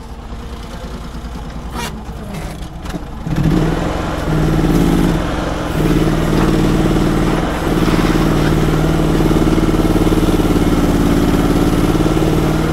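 Sherpa mini loader's V-twin engine idling, then revving up about three seconds in and running at high revs while the loader scoops a bucket of sand and drives off with it.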